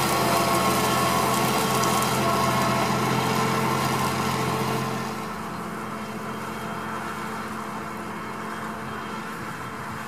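John Deere 7260R tractor's six-cylinder diesel engine running steadily under the load of a seven-furrow Kverneland LO 100 on-land plough working the soil. About halfway through the engine sound drops noticeably in level and its deepest tones fade.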